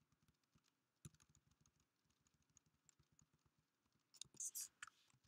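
Faint computer keyboard typing: a run of light, irregular key clicks, with a few louder keystrokes in quick succession near the end.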